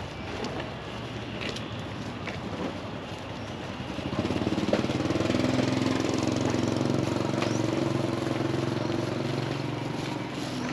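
A motorbike engine running as it passes close by on the street, coming up loudly about four seconds in and fading near the end, over general street noise.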